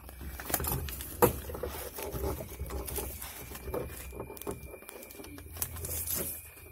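Clicks, knocks and rustling as a plastic twin car fan and its cable are handled and moved about on a cab floor, with one sharper knock about a second in.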